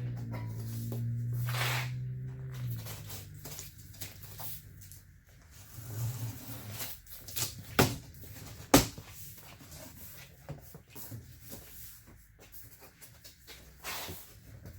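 Cardboard shipping box being opened and its packaging handled: scattered rustles, scrapes and clicks, with two sharp knocks about eight and nine seconds in. A low steady hum runs under the first couple of seconds.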